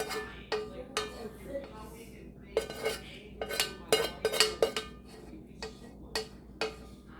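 A spoon clinking and scraping against a dish while barbecue sauce is spooned out and spread, with about fifteen sharp, ringing clinks at uneven intervals.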